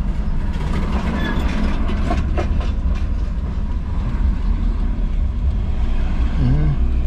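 A car driving on the road, heard from inside: a steady low rumble of engine and tyres with road noise, and a run of small rattles and knocks about one to three seconds in as it goes over rough surface.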